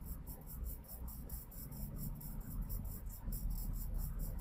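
Sharpened charcoal pencil scratching across layout paper in a quick run of short strokes, about four or five a second, over a low steady room rumble.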